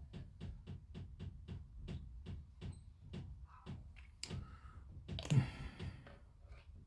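Even, quick ticking, about five ticks a second, then a louder knock and rustle about five seconds in as plastic model kit parts are handled and pressed together.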